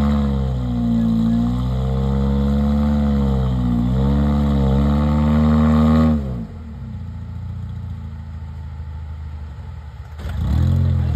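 Rock crawler buggy engine revving up and down under throttle as the buggy crawls over boulders. About six seconds in the revs fall sharply to a low rumble, then rise again near the end.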